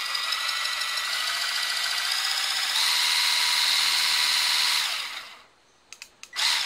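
KitchenAid Pro Line cordless hand blender running with its wire whisk spinning in open air: a steady motor whine that steps up to a higher speed about three seconds in, then winds down and stops about five seconds in. A few clicks and a short loud burst follow near the end.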